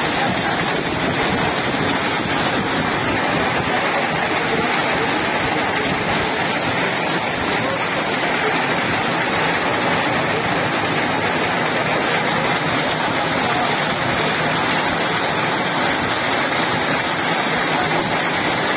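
Heavy rain pouring down steadily, a dense, even hiss that holds the same level throughout.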